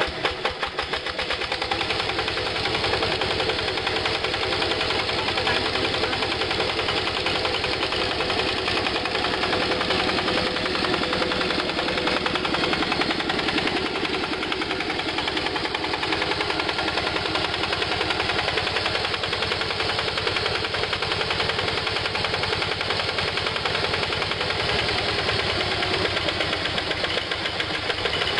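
Single-cylinder diesel engine of a Yanmar two-wheel hand tractor running steadily with a fast, even chugging.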